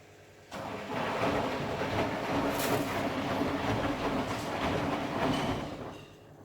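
Candy Formula Inox P 7.71X washing machine's drum turning in a wash tumble: the motor starts and the wet load tumbles and rattles loudly for about five seconds, then the drum slows and stops.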